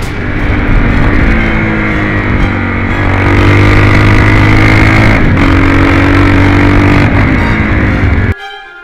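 Motorcycle engine running under way, heard from an onboard camera with wind noise; its pitch climbs and drops back several times as the bike pulls through the gears. Near the end it cuts off abruptly and orchestral music with violin takes over.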